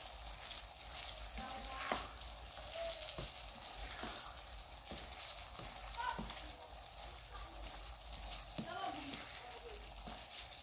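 Vegetables sizzling in oil in a metal frying pan while a wooden spatula stirs them, knocking and scraping against the pan every second or so.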